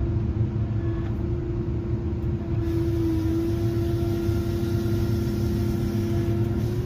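Tigercat 822 feller buncher running, heard from inside its cab: a steady engine and hydraulic drone with a constant whine. About two and a half seconds in, a high hiss joins it.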